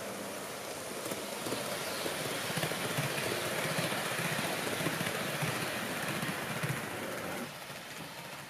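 HO-gauge model Super Hokuto train running past close by: a steady rolling rush of wheels on track that swells as the coaches go by and drops off sharply about seven and a half seconds in.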